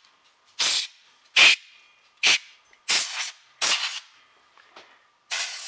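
Compressed air blown in short hissing blasts, about one a second, to clear dust out of a disk drive's interior. The last blast, near the end, is the longest.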